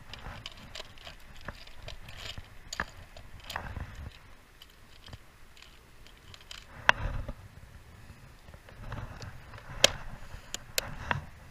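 Clear plastic tackle box being handled: lures clicking and rattling against the plastic compartments as they are picked through, with sharp plastic snaps, the loudest about seven and ten seconds in, as the lid and its latches are shut.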